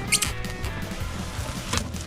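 Background music with a steady low beat, with two brief sharp sounds, one just after the start and one near the end.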